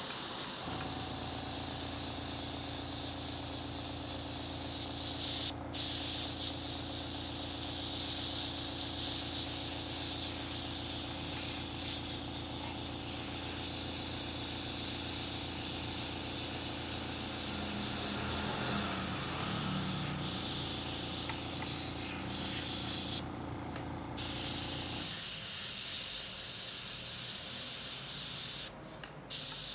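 Airbrush spraying paint with a steady hiss, its air stream also shaping a tuft of cotton wool into loose smoke; the hiss breaks off briefly three times as the trigger is let go. Under it runs a steady low hum from the air compressor, which stops about 25 seconds in.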